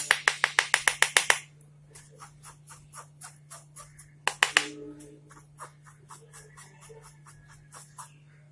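Plastic mesh sieve of flour being shaken, rattling in quick sharp clicks about eight a second for just over a second. Then a steel spoon stirring and scraping the flour against the sieve mesh, soft ticks about three a second, with two louder knocks about four seconds in.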